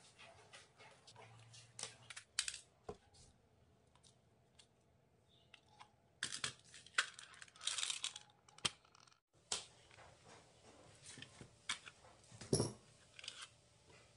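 Small beads clicking and clattering against each other and a dish as they are handled, in irregular clicks with a few louder rattles.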